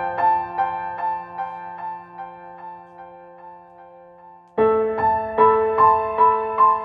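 Gentle background piano music: a steady run of single notes, about two or three a second, fading away, then a louder chord opens a new phrase about four and a half seconds in.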